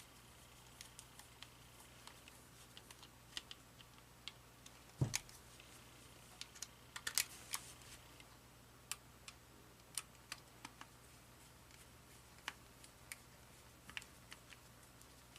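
Faint, scattered clicks and light taps of a plastic Panasonic cordless phone handset being handled, with a louder thump about five seconds in.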